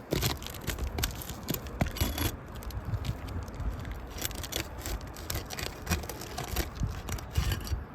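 Steel flat bar scraping and prying under sealed asphalt roofing shingles, making irregular scrapes, clicks and crackles. The shingles are breaking and shedding granules rather than unsealing cleanly.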